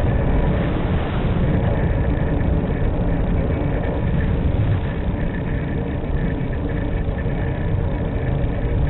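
Steady rushing airflow on the onboard camera microphone of an E-flite Mystique RC glider in flight, with a few faint steady tones above it.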